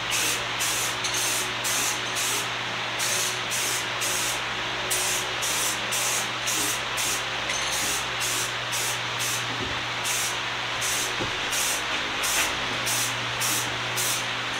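Aerosol spray paint can spraying red paint in short bursts, about two a second, over a steady low hum.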